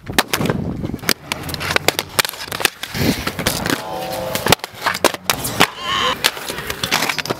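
Inline skates rolling and clattering on skatepark concrete, with many sharp knocks from landings and hits, and wind on the microphone.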